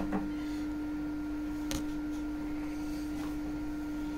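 Steady electrical hum of workshop machinery, one even tone, with a single light click a little under two seconds in.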